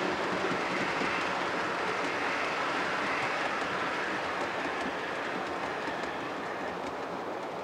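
OO gauge model train running along the layout track: a steady rumble of wheels on rail and motor, slowly fading as it moves away.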